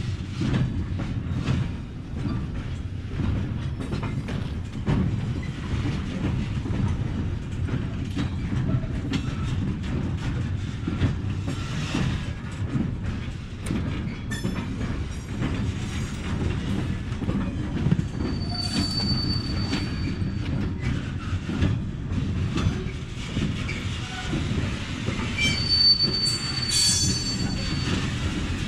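Freight wagons loaded with timber rolling past on the rails: a steady rumble with metallic clanks and clatter from the wheels and couplings. Brief high wheel squeals come about two-thirds of the way through and again near the end.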